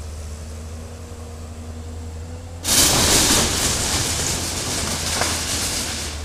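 Hydraulic excavator's engine running with a steady hum and a faint whine. About two and a half seconds in, a loud crash and rattle of corrugated metal roofing and timber breaking as the bucket tears into the house, lasting about three seconds.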